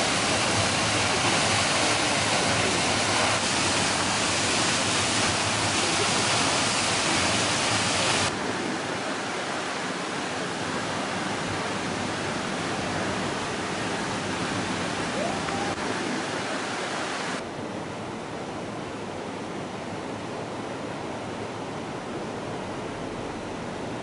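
Otodome Falls, a waterfall about 25 m high, pouring as a steady, even rush of water noise. The level drops in two sudden steps, about eight seconds in and about seventeen seconds in. By the end it is the softer rush of a shallow rocky river.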